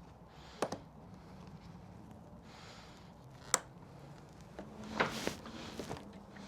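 A faint steady low hum with a few sharp clicks and knocks: one early on, a sharp one about halfway, and a short cluster about five seconds in.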